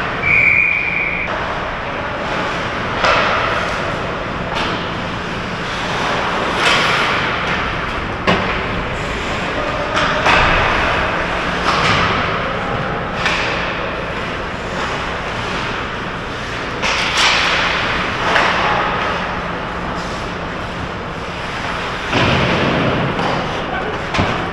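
Ice hockey play around the goal: skate blades scraping and carving the ice in repeated rushes, with sharp clacks of sticks and puck and thuds against the boards, over a steady low hum of the rink. A brief high steady tone sounds about half a second in.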